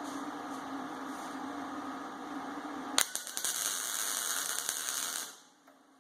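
A steady low hum, then about three seconds in a welding arc strikes with a sharp click and crackles for about two seconds before cutting off suddenly: a tack weld being laid on steel round stock.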